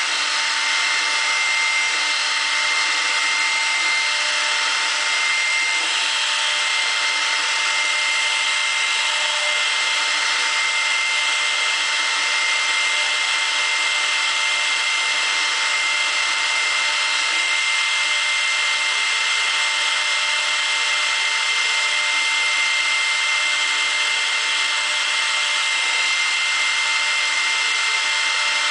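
CNC router with a 1.7 kW, 18,000 rpm spindle milling a PVC block with a 10 mm cutter: a steady high whine over a continuous cutting hiss. In the second half a faint tone rises and falls every couple of seconds.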